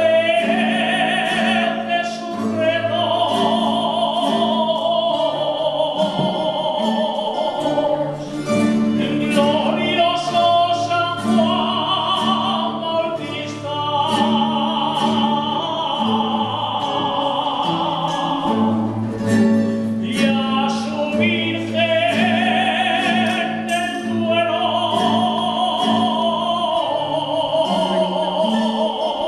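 Jota singing: a voice holding long notes with wide vibrato over a steady string accompaniment, with plucked strings.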